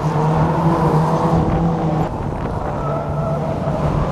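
Engines of several banger racing cars running as they race round the track, a steady drone that eases a little about halfway through.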